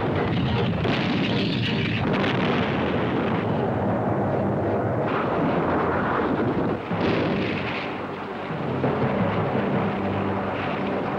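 Battle sound: a dense, continuous rumble of artillery fire and explosions, with sharp reports in the first couple of seconds.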